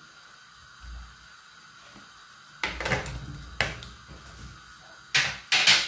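Peeled potatoes being moved about by hand in a water-filled non-stick pot: a few short knocks and clatters, the two loudest near the end.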